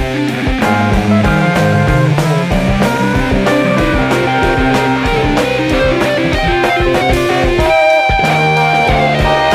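Instrumental 1970s progressive rock: a guitar line moving from note to note over bass and a steady beat.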